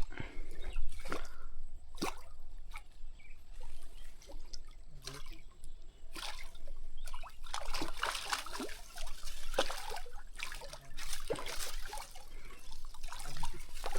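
Water trickling and sloshing, with a few sharp clicks early on and rougher surges of splashing in the second half.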